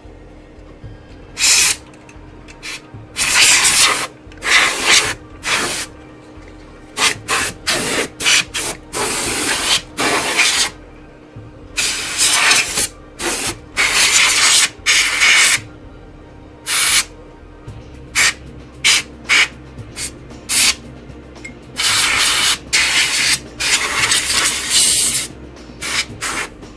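Compressed-air duster blowing dust out of a computer, hissing in repeated short blasts of a fraction of a second to over a second each.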